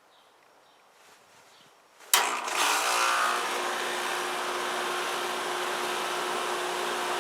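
Central air conditioner's outdoor unit kicking on about two seconds in with a sudden loud clunk, then its compressor and condenser fan running steadily with a hum, now that the failed capacitor has been replaced.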